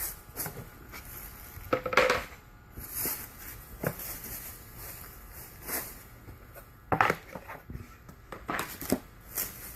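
Irregular knocks, clatters and rustling as flat-pack cabinet parts and their packaging are handled and set down.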